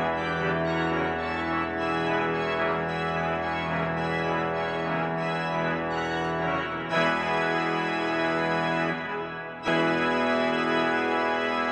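Pipe organ playing held chords. About seven seconds in the sound gets brighter, then after a brief dip a new chord comes in sharply near ten seconds.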